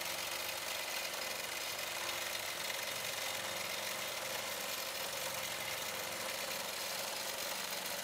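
Gammill longarm quilting machine stitching at a steady speed, its needle running continuously as the quilt is freehand-quilted.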